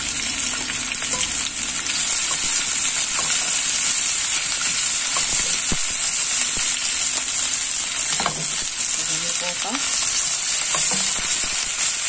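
Sliced onion and red and yellow bell peppers sizzling steadily in olive oil in a non-stick frying pan, stirred now and then with a slotted spatula.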